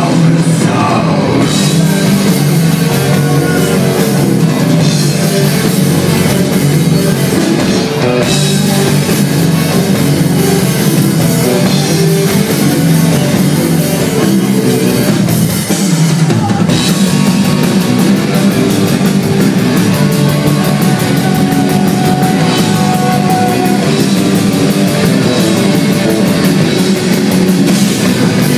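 Live heavy metal band playing loud distorted electric guitars over a drum kit. The sound dips briefly just past halfway, then carries on.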